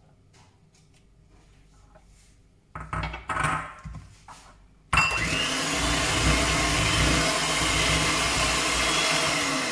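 Kenwood electric hand mixer switched on about five seconds in and running steadily, its beaters whirring through creamed butter and brown sugar in a plastic bowl. Just before it starts, a couple of seconds of knocks and scraping as the bowl and mixer are handled.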